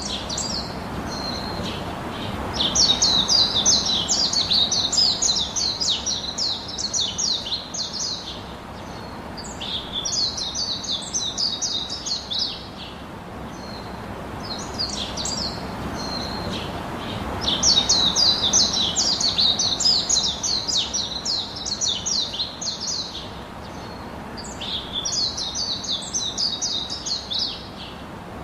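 Birds chirping in rapid chattering bouts of several seconds, four times, with short pauses between, over a steady low background hiss.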